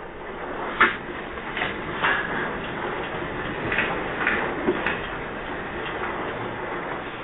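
Steady rumbling noise with irregular sharp knocks and rattles, about six of them, as a building and its contents shake in an earthquake.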